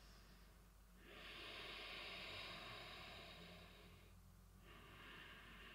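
Faint, slow breathing of a woman holding a yoga forward fold: one long breath of about three seconds starting a second in, then a quieter breath beginning near the end.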